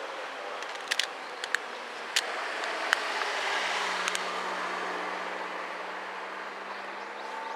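Seibu 301-series electric train pulling in along the platform and slowing, with the steady noise of wheels on rail and several sharp clicks in the first half. A steady low hum sets in about halfway through.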